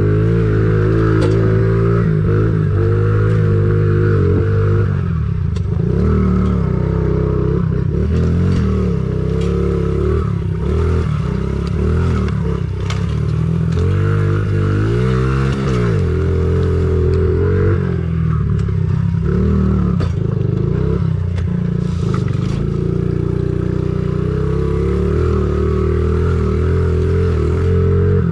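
Honda CRF50 pit bike's small single-cylinder four-stroke engine being ridden, the revs rising and falling every second or two with the throttle, with scattered knocks.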